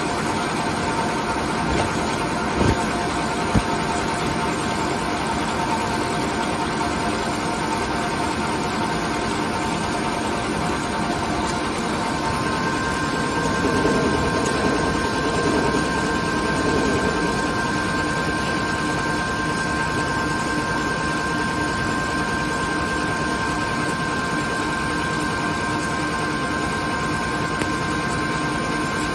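ALLES ALCK6163X1500 CNC lathe turning a shaft under flood coolant: the machine runs steadily with a hiss of coolant spray and a steady high whine, with a few light clicks a few seconds in.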